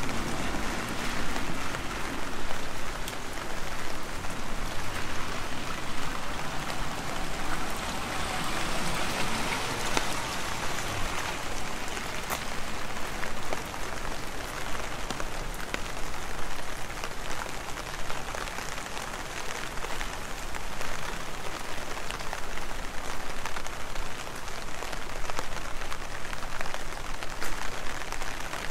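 Heavy rain falling steadily, an even hiss peppered with close, sharp drop impacts.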